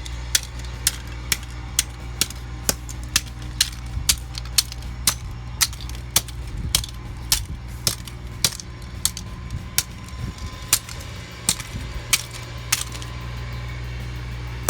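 An alarm clock being smacked about 25 times in a row with a hard object: sharp knocks at about two a second, spacing out a little near the end, over a steady low hum.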